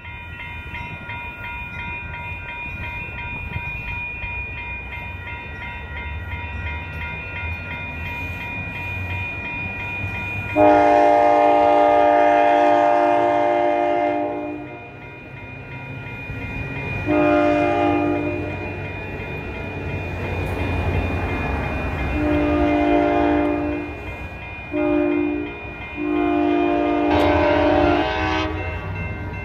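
Locomotive horn sounding a series of blasts: a long one about ten seconds in, two more long ones, a short one and a final long one, the pattern of a grade-crossing warning. Under it, the low rumble of a passing passenger train and, early on, the steady ringing of level-crossing bells.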